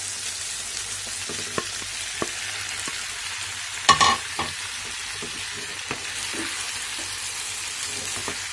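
Chicken, capsicum and tomato sizzling in a nonstick frying pan as boiled macaroni is tipped in and stirred with a wooden spatula: a steady hiss with scattered light knocks of stirring, and a louder clatter about four seconds in.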